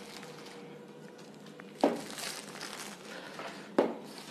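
Plastic shrink-wrap crinkling as it is pulled off a smartphone box, with two sharp knocks about two seconds apart.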